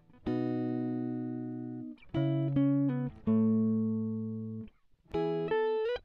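Background music: a slow melody of separate held notes, each sounding for up to about a second and a half, with short breaks between them.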